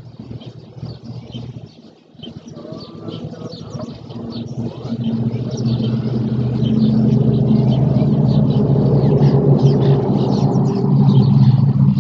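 An engine approaching, its steady low hum swelling from about four seconds in until it is the loudest sound, with small birds chirping throughout.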